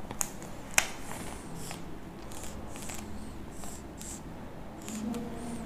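Dry-erase marker drawing on a whiteboard: a series of short, scratchy strokes, with two sharp clicks in the first second.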